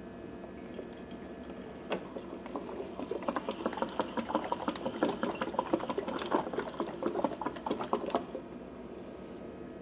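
Petrol glugging and gurgling from a plastic jerrycan's spout into a portable generator's fuel tank, topping up a tank that already holds fuel. The glugging starts about three seconds in after a light knock and stops suddenly near the end.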